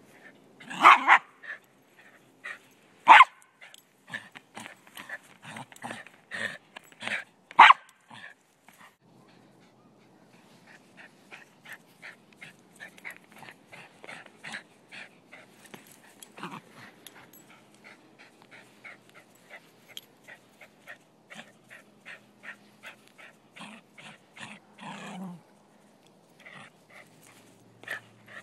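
Silky Terrier barking during play: a few loud barks in the first eight seconds among a quick run of shorter ones, then a steady series of quieter short sounds from the dog.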